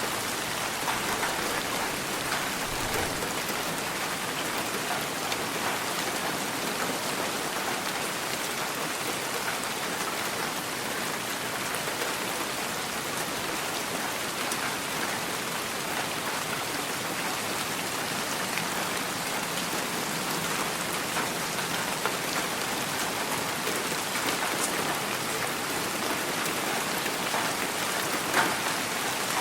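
Steady rain falling, an even hiss with individual drops ticking on a surface, and one sharper drop hit about a second before the end.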